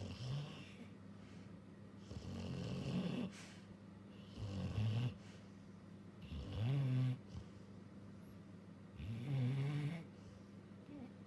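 Labrador dog snoring in deep sleep, about five snores a couple of seconds apart.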